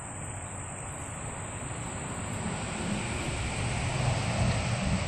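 A low rumbling noise that builds through the second half and is loudest near the end.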